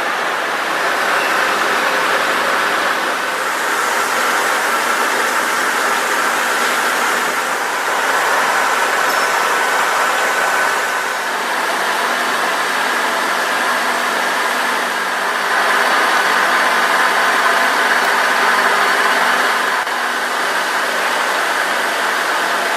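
KNUTH WF 4.1 tool milling machine running, a steady mechanical whir with several held tones over a noisy hiss. It steps up and down in loudness a few times.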